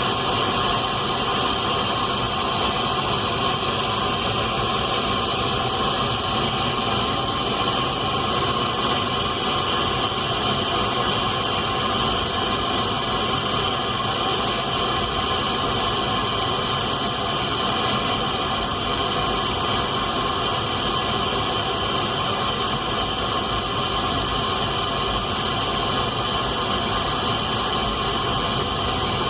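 Radio static: a steady, unbroken hiss with no change in level.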